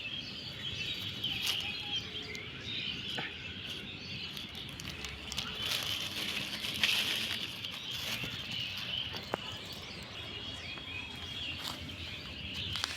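Birds chirping steadily in the background, with a few scattered sharp clicks.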